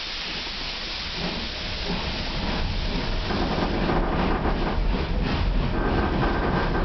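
Steam locomotive hauling a train, heard from inside the carriage behind it: a steady hiss, then from about three seconds in a louder, rapid rhythmic beating as the train gets under way.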